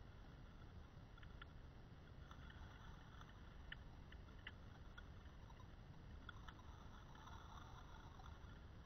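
Near silence: faint, muffled underwater ambience picked up by a camera submerged in a lake, a steady low rumble with a few faint scattered ticks.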